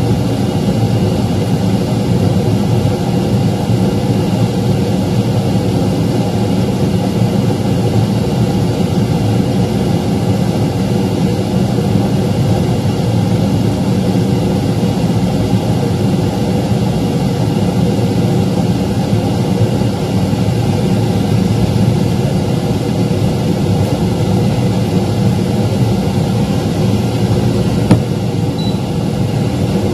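Steady low hum of a running fan motor, unchanging throughout, with one brief click near the end.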